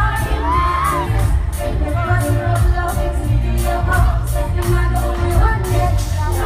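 Live pop song from a band: a female lead vocal over heavy bass, guitar and drums keeping a steady beat of about two hits a second, with some crowd noise mixed in.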